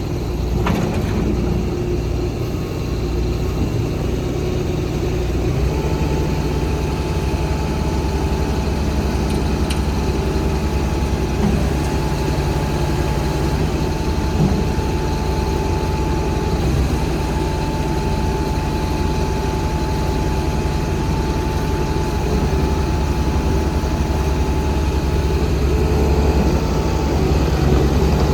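Bobcat T650 skid steer loader's diesel engine running steadily. It picks up at about six seconds, and a steady thin whine sits over it from then until near the end.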